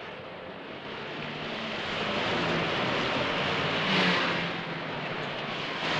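Busy road traffic: motor vehicles passing close with engines running. The traffic grows louder over the first two seconds, and one vehicle passes loudest about four seconds in.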